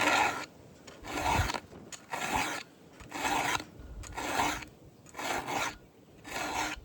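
A 7/32-inch round file rasping across a cutter of a Stihl MS 500i chainsaw chain in slow, even hand strokes, about one a second, sharpening the cutter's gullet.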